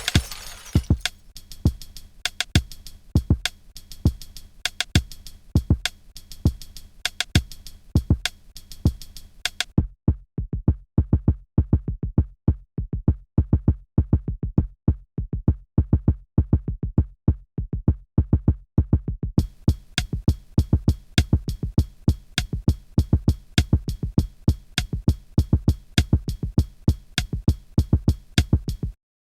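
Electronic drum-machine beat with a steady, fast rhythm of kicks and hits. About ten seconds in, the highs drop away for around ten seconds, leaving only the low, bass-heavy hits, before the full beat comes back. It cuts off abruptly near the end.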